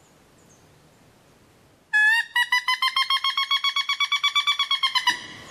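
A woodpecker's loud rattling call, a rapid series of about ten notes a second on a steady pitch, starting about two seconds in and cutting off suddenly after about three seconds.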